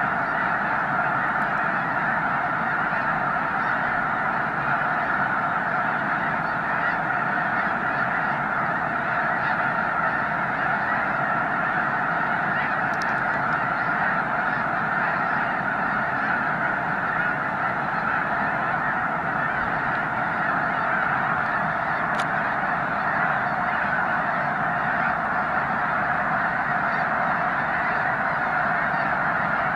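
A vast flock of snow geese calling all at once, countless honks merging into a continuous, unbroken din.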